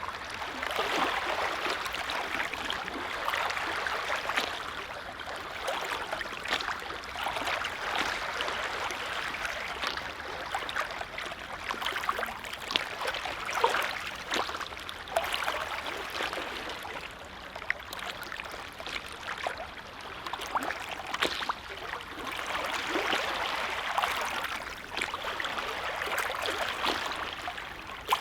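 Small lake waves lapping and splashing gently at the water's edge, a steady wash of little splashes that swells and eases every few seconds.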